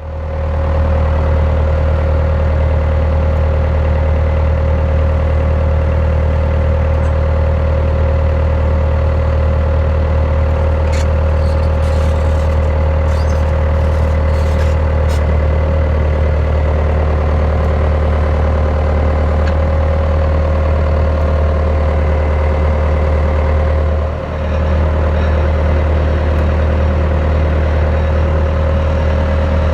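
A vehicle engine running steadily and loudly, with some light ticks and rattles about a third of the way in and a brief dip in level a little past two thirds of the way through.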